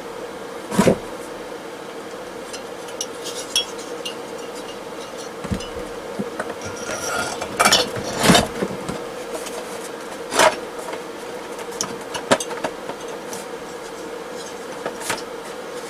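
Parts of a diesel heater being handled and fitted back into its case: scattered clicks and knocks of metal and plastic, loudest about eight seconds in, over a steady faint hum.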